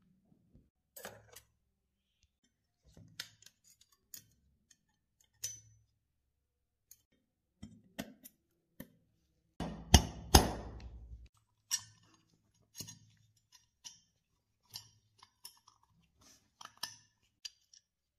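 Small steel parts clicking and tapping against a pistol frame as it is handled and its internal parts are fitted, in scattered irregular clicks, with two louder knocks about ten seconds in.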